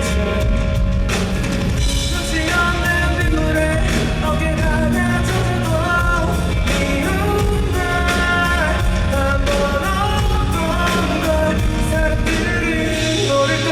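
Live rock band playing loudly and steadily: drum kit, guitars and bass under a melodic lead line.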